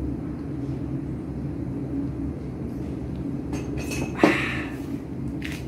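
Steady low rumble, with one sharp clink of tableware about four seconds in.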